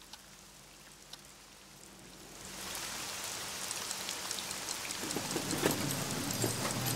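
Rain fading in about two and a half seconds in and building to a steady fall, with heavier drops striking from about five seconds in. Before it, faint ticks about once a second.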